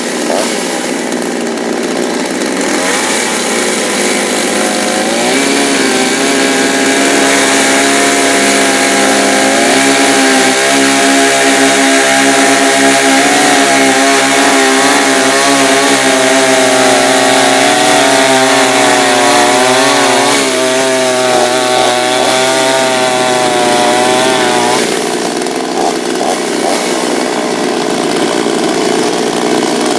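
Chinese clone two-stroke chainsaw running at high revs through a maple log. The engine note wavers up and down as the chain loads in the cut, and the saw eases back to a lower, steadier speed about 25 seconds in.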